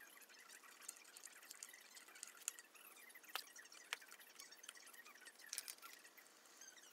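Faint, scattered clicks and ticks from a screwdriver and small metal fittings being handled while a flat-pack cabinet is put together, with two sharper clicks a little past the middle.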